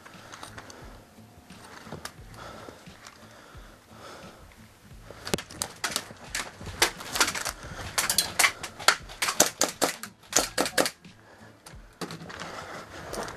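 Airsoft gunfire: a quiet stretch, then from about five seconds in a run of sharp, irregular clicks and snaps, several a second, for about six seconds before dying away.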